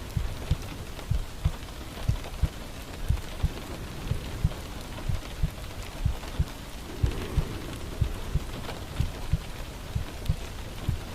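Steady rain falling, with a heartbeat in paired low thumps about once a second over it.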